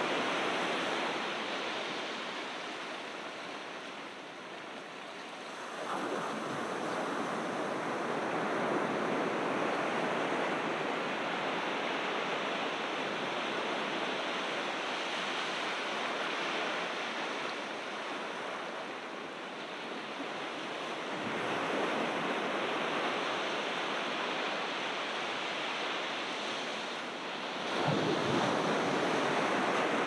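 Ocean surf washing onto a beach, a steady wash that swells with each set of breaking waves. There are louder surges about six seconds in and again a little past twenty seconds, and the biggest near the end.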